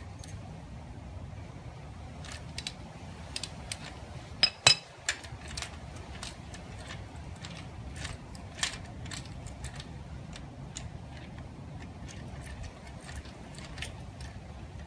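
Irregular metallic clicks and clinks of a socket and extension bar turning a frame slider bolt by hand, with one sharp, ringing metal clink about four and a half seconds in.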